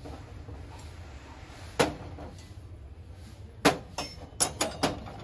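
Sharp knocks and clinks of brass items being handled and set down on a hard surface: one about two seconds in, then a quick run of several near the end.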